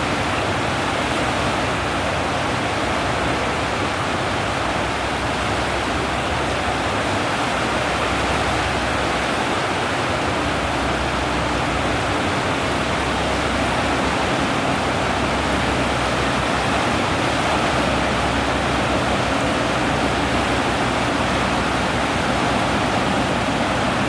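Steady rushing noise of wind and sea water, with a faint low hum underneath.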